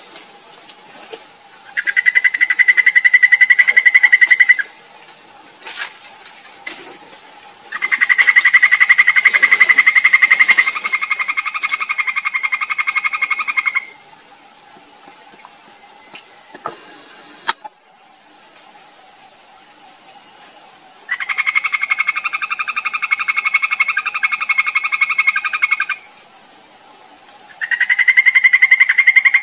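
Golden poison frogs (Phyllobates terribilis) giving their advertisement call: long, rapid, buzzy trills lasting several seconds each. Four trill bouts are heard, the second running about six seconds and dropping in loudness partway through. Behind them is a steady high-pitched insect drone.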